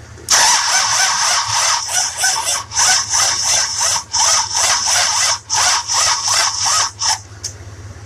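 Starter cranking the 1966 Buick Riviera's 425 Nailhead V8 slowly in uneven surges for about seven seconds without the engine catching. The slow crank points to the starter struggling, with spark at the HEI distributor weak and inconsistent.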